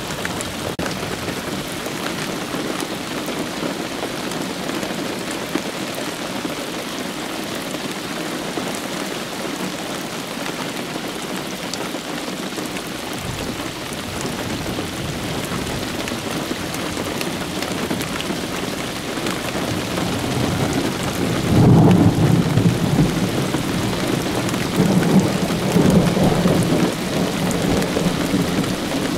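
Steady rain falling during a thunderstorm, with a roll of thunder that builds from about halfway through and is loudest in two swells near the end.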